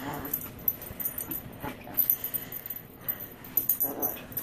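Small dog playing and lunging about on carpet, with light metallic jingling throughout and three short sounds from the dog, near the start, in the middle and near the end.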